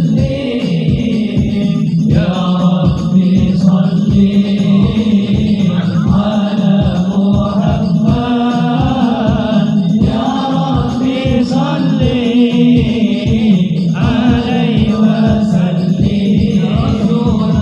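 Sholawat, an Islamic devotional song in Arabic, sung as a chant over a steady beat of low drum strokes.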